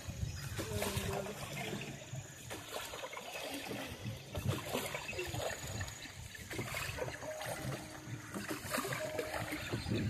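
Water splashing and trickling around a small rowed boat as it is paddled along, with irregular knocks and splashes.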